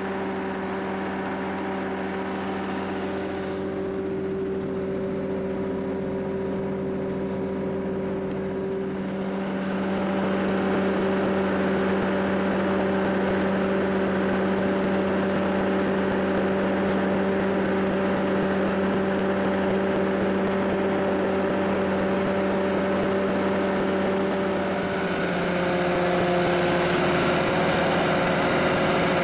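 The New Holland Braud SB 64 straddle carrier's engine runs at a steady speed with a constant hum. It grows louder and rougher about ten seconds in, and its pitch shifts slightly near the end.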